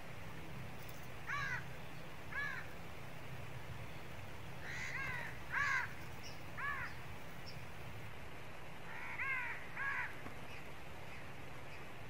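Crow cawing about seven times in three loose groups, the loudest near the middle, over a steady low background hum.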